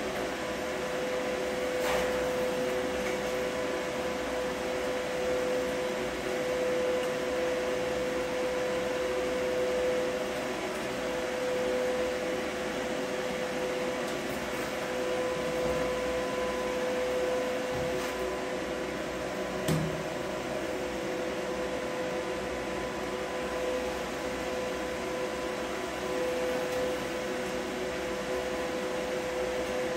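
Steady machine hum with an even, high whine, unchanging throughout, and a single soft knock about twenty seconds in.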